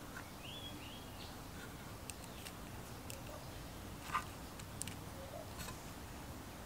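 Faint clicks and handling sounds of a spring-loaded alligator clip and its wire being fitted onto the spade terminal of a computer power supply's red lead, the sharpest click about four seconds in.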